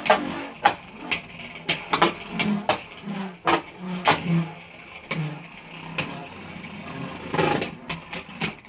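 Two Beyblade Burst spinning tops, Mirage Fafnir and Demise Devolos, spinning in a plastic stadium, with a low whir and sharp irregular clacks as they strike each other and the stadium walls.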